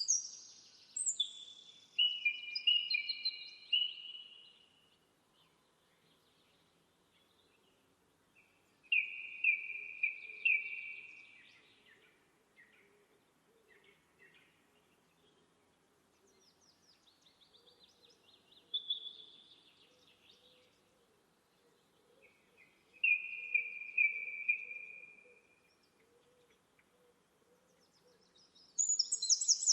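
A songbird singing short, high phrases several seconds apart, each a quick run of notes dropping in pitch. The phrases come near the start, around a third of the way in, and twice more past the middle, with quiet outdoor background between them.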